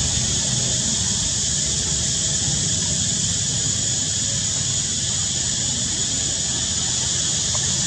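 Steady high-pitched hiss with a thin whine on top, the sound of an insect chorus in the trees, over a low continuous rumble.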